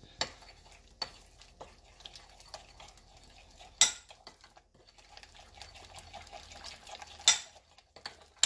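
A fork stirring thick pancake batter in a glass bowl: soft scraping and sloshing, with many small ticks and a few sharp clinks of the fork against the glass, the loudest about four seconds in and near the end.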